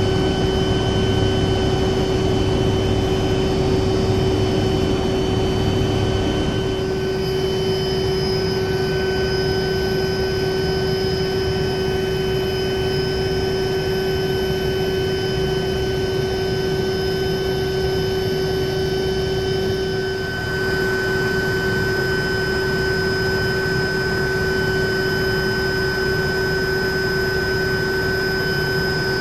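Helicopter turbine and rotors heard from inside the cabin: a steady hum with several constant high tones over an even rushing noise.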